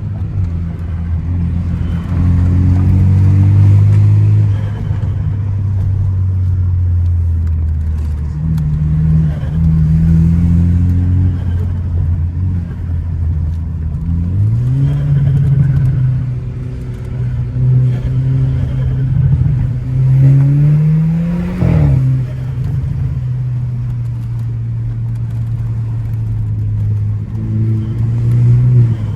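Car engine under way on a winding road, holding steady revs and then accelerating. Twice the pitch climbs as the revs build, and the second climb drops off sharply a little past two-thirds of the way through, as at a gear change or a lift off the throttle.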